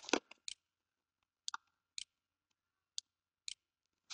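Computer mouse clicks, about half a dozen short sharp ones at irregular spacing, with a louder brief noise right at the start.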